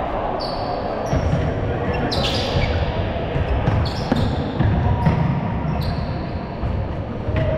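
Indoor football on a wooden sports-hall floor: trainers squeak several times and the ball is kicked and thuds, echoing in the large hall.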